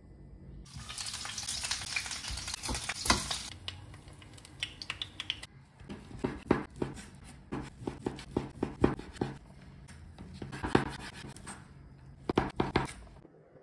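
Chicken fillet sizzling in a frying pan for a few seconds. Then a large knife chops the cooked chicken on a wooden cutting board: short runs of sharp knocks, several a second.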